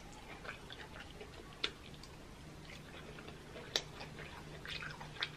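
Faint, scattered wet clicks and smacks of a person eating close to the microphone: chewing and licking seafood-boil sauce off the fingers, with about four sharper clicks among softer ones.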